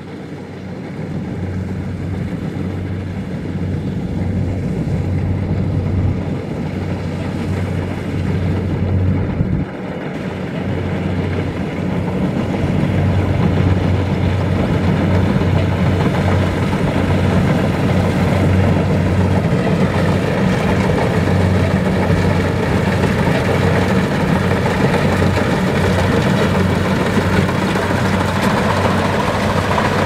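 Kubota DC-70 Plus combine harvesters running while cutting rice: a steady diesel engine drone with the clatter of the cutting and threshing gear. It grows louder over the first dozen seconds as the nearer machine comes close, then holds steady.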